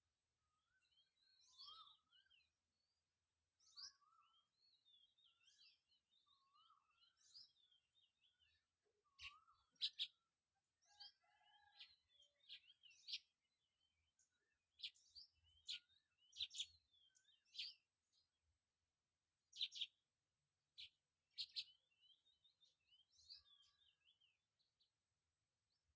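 Faint birdsong: many short chirps and whistled notes, with a few sharper, louder chips in between.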